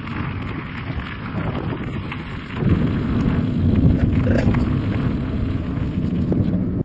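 Wind buffeting the microphone of a bike-mounted camera, mixed with the rumble of bicycle tyres rolling over a gravel path. It gets louder about two and a half seconds in.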